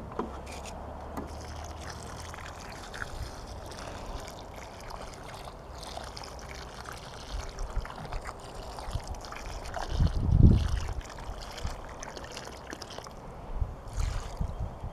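Water pouring into a planting hole around a sapling, trickling and splashing into muddy soil. A low rumble about ten seconds in is the loudest moment.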